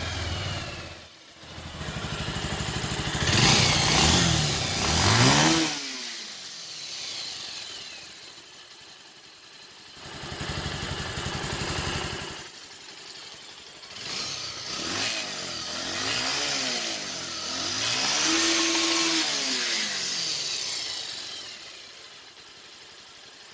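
Bajaj Pulsar 150's air-cooled single-cylinder engine running after a ring-and-piston rebuild, blipped on the throttle several times so the revs rise and fall between stretches of idle. It runs much smoother now.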